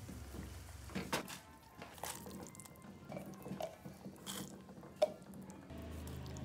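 Light clicks and knocks of kitchen utensils against a glass cooking pot, the sharpest about five seconds in, over quiet background music.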